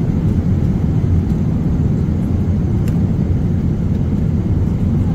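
Steady low rumble of a jet airliner's cabin noise in flight, heard from a passenger seat.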